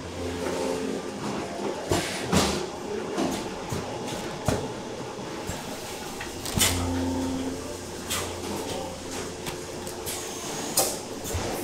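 Processing-plant machinery running with a low hum that swells twice, over scattered sharp knocks and clatter from handling frozen salmon steaks at a packaging machine, and a brief high squeak near the end.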